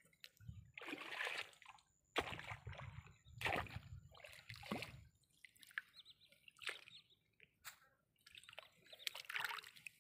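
Shallow paddy-field water splashing and sloshing in several short, irregular bursts as plants are pulled up from the flooded mud.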